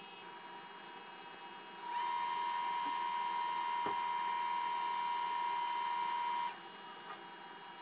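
A steady electronic tone, held for about four and a half seconds and then cut off sharply, over a low room hum.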